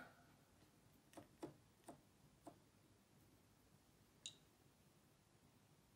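Faint clicks from a Gaggenau steam oven's control dial being turned, four over about a second and a half, then a single brief higher-pitched tick as a finger touches the control panel. Otherwise near silence.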